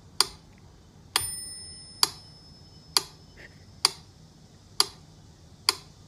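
Sharp, evenly spaced ticks, about one a second, each with a brief metallic ring; about a second in, one tick leaves a short bell-like ring.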